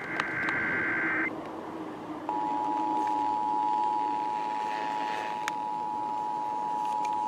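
Emergency Alert System test over radio: the warbling SAME digital header data burst ends about a second in, and after a short gap the steady two-tone EAS attention signal starts and holds, with a faint hiss underneath.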